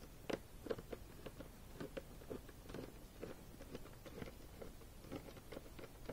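Screwdriver turning a screw in a football helmet's visor clip: faint, irregular clicks and small scrapes, a few a second, the loudest about a third of a second in.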